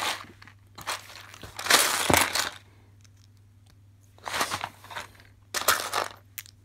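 Loose LEGO pieces rattling and scraping as a hand rummages through them in a cardboard box, in several short bursts; the loudest comes about two seconds in.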